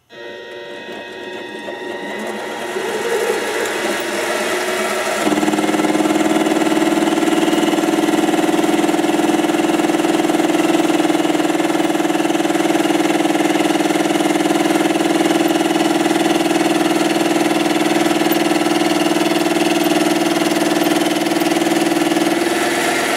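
Lathe running with a spiral roughing end mill in its chuck, milling a metal workpiece held in the tool post. The sound builds over the first few seconds, then a loud steady whine sets in about five seconds in and holds until the machine stops near the end.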